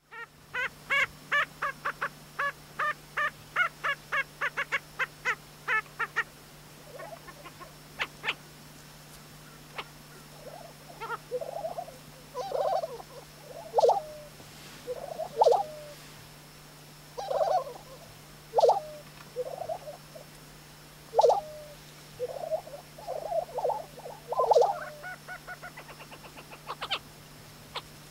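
Lesser prairie chickens calling on a lek: a fast run of repeated notes for the first six seconds or so, then a string of short, lower display calls from the males about once a second, and another quick run of notes near the end.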